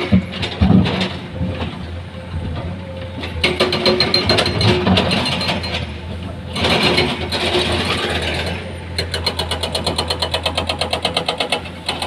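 Komatsu hydraulic excavator's diesel engine running steadily while it digs, with two spells of clattering and scraping from the bucket and arm. Near the end comes a fast, even rattle of about eight beats a second.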